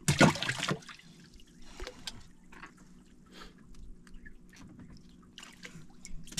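Water splashing and dripping around a small wooden outrigger fishing boat as handlines and fish are hauled in: a short loud splash at the start, then scattered small drips and splashes.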